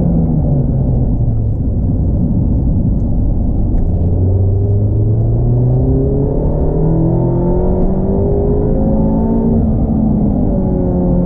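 Mazda MX-5 ND2's inline-four engine under way, rising in pitch as it accelerates and dropping back, three times over, over steady road and tyre noise.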